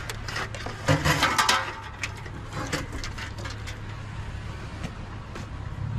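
Scattered clicks, scrapes and knocks of a metal light-fixture ballast being handled, busiest about a second in, over a steady low hum.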